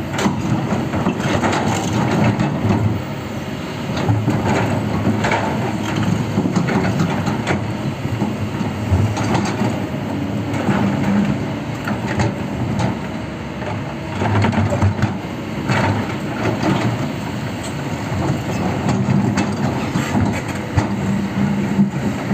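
Heavy machinery working hard: a low diesel rumble with repeated cracking and crunching strikes throughout.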